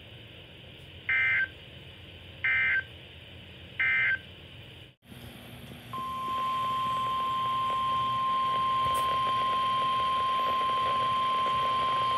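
NOAA Weather Radio's EAS data signal sounds three short, identical warbling bursts about a second and a half apart: the end-of-message code that closes the tornado watch broadcast. After a brief dropout, the steady 1050 Hz warning alarm tone begins about six seconds in and holds, announcing a new warning.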